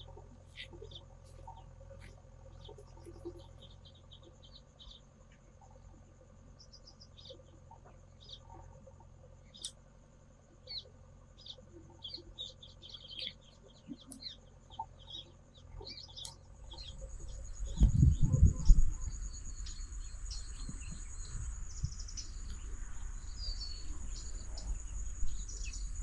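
Small birds chirping over a steady, high insect drone. About two thirds of the way in a low rumble sets in, with a few loud thumps.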